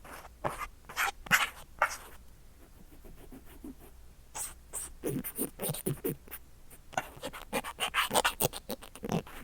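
A cotton swab rubs and scratches against the microphone side of a Mu6 Lifelike2 binaural earphone's shell, heard up close through that microphone. A few separate strokes come first, then a quieter pause of about two seconds, then a quick run of rubs.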